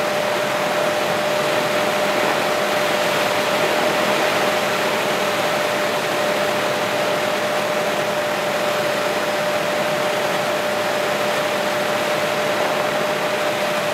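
Helicopter cabin noise in steady flight: an even rush of rotor and engine noise with a constant whine running through it.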